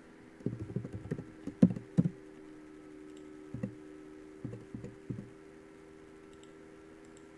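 Irregular bursts of dull taps and clicks from a computer keyboard and mouse being worked close to the microphone, the loudest a little over a second and a half in, over a steady low electrical hum.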